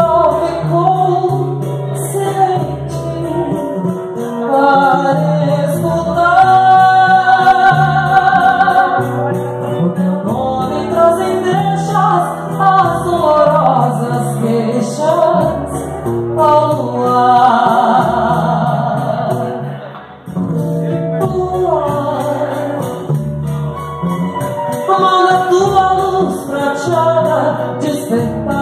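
A woman sings a seresta ballad live into a microphone, holding long notes with vibrato. She is backed by guitar and a pandeiro.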